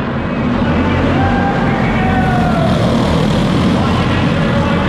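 Racing go-karts with small single-cylinder clone engines running on the track. From about a second in, engine notes glide down and back up as the karts lap, over a steady din.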